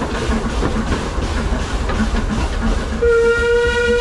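A narrow-gauge steam train running, its wheels rattling on the rails under a steady rumble with a regular beat. About three seconds in, the locomotive's steam whistle starts one long steady note.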